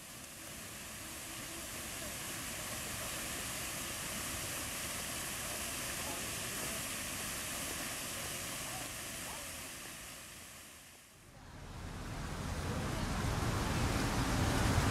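Fountain jets splashing, a steady hiss of spray that fades out about eleven seconds in. A low outdoor rumble, like wind on the microphone, then rises.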